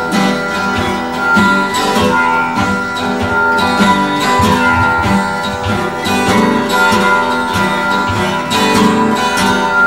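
Instrumental break in a folk song: strummed acoustic guitar playing on without vocals.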